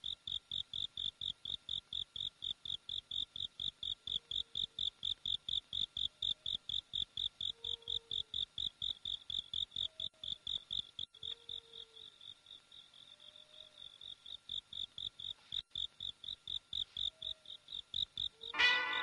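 Crickets chirping at night, an even high chirp about three times a second, with a few faint short low notes in between. Music with brass comes in suddenly at the very end.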